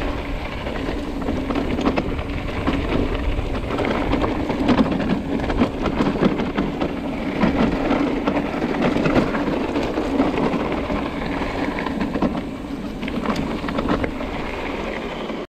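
Mountain bike riding over a rough trail: tyres crunching on gravel and stones with the bike rattling, a dense crackling noise. It cuts off suddenly near the end.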